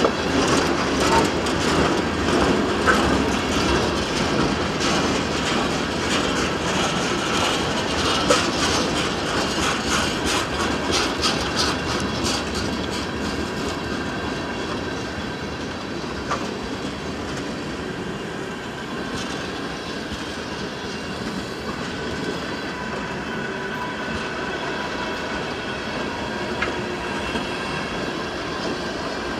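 Freight train cars rolling past, their wheels clicking over the rail joints in a quick rhythm. The clicking is strongest in the first half, then gives way to a quieter, steadier rumble as the train moves off.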